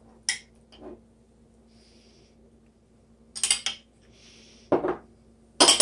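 Kitchen items handled on a table: a few sharp clicks and knocks, with a short cluster about three and a half seconds in, and two soft brief hisses between them.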